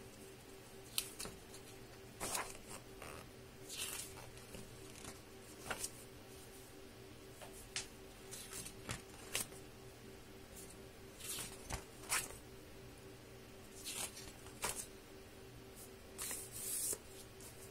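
Pages of a hardcover book being turned by hand: short, irregular paper rustles and soft taps every second or two, with a longer rustle near the end, over a faint steady hum.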